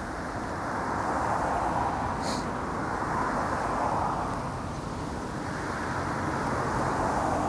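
Road traffic: cars passing one after another on the street alongside, their noise swelling and fading in waves over a steady low rumble. Picked up by a chest-clipped lavalier microphone.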